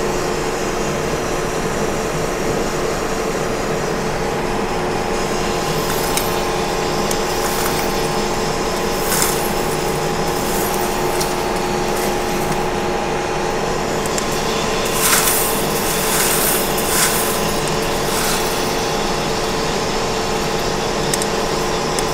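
Metal lathe taking a slow facing cut across a 1045 steel bar with a carbide turning insert: a steady machine hum with a fixed whine. A few brief high crackles come now and then during the cut.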